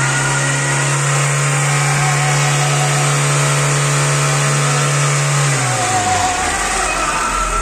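Citroën Xsara's four-cylinder engine held at steady raised revs to warm it up and open the thermostat after a coolant refill. About six seconds in the revs drop back toward idle.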